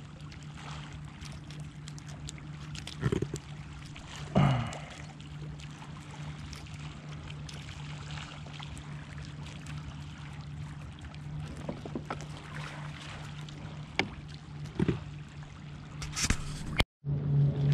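Water trickling, gurgling and lapping against a plastic kayak hull as a caught fish is held over the side, with scattered small splashes and knocks and a steady low hum underneath. Two brief louder splashes or handling sounds come about three and four and a half seconds in, and the sound cuts out abruptly near the end.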